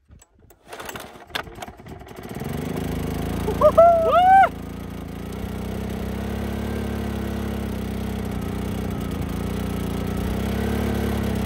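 Small portable petrol generator starting about two seconds in after a few clicks, then running at a steady hum. About four seconds in, three short, loud, high-pitched squeals that rise and fall are heard over the hum.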